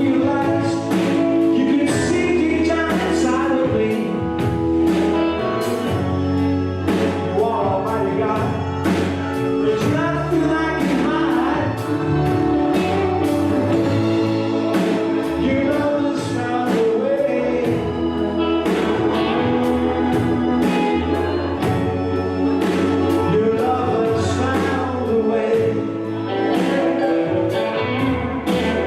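Gospel music with singing, possibly several voices, over a steady beat with sustained instrumental chords.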